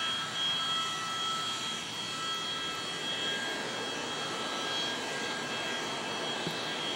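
Steady whine of a Boeing 737-200's Pratt & Whitney JT8D turbofan engines: several high, unchanging tones over a rushing noise, with no rise in pitch.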